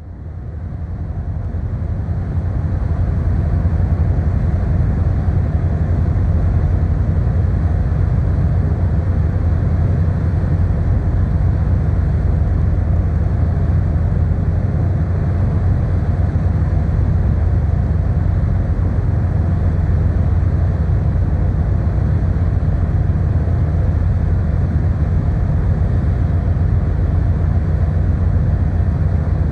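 Ferry Kuniga under way: a steady low rumble of the ship's engines with a rushing haze of wind and water over it, fading in over the first few seconds.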